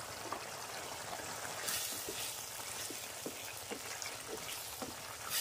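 Thick chickpea masala gravy bubbling in a kadai, a steady sizzle broken by a few soft pops of bursting bubbles. There is a brief louder stretch about two seconds in as a wooden spatula stirs through it.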